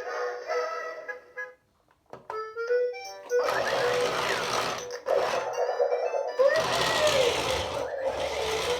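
Remote-control Cory Carson toy car playing an electronic tune from its speaker. From about three and a half seconds in, its small electric drive motor whirs in several spells under the music.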